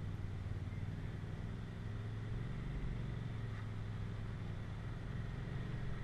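Polaris RZR Turbo S side-by-side's turbocharged twin-cylinder engine running at low, steady revs as the machine crawls up a rock ledge.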